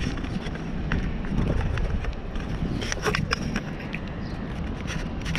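Jogging footfalls on paving with knocks and rubbing from a handheld camera, over a steady wind rumble on the microphone.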